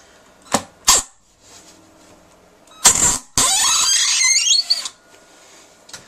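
Cordless drill-driver driving a 3-inch cabinet screw through a wooden board: two short blips of the trigger, a brief burst near three seconds, then a run of about a second and a half with a whine rising in pitch. The screw is not holding in the wood underneath.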